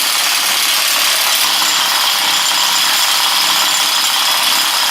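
Snap-on impact gun running continuously and loudly, spinning off the hub nut, with a steady hissing whirr.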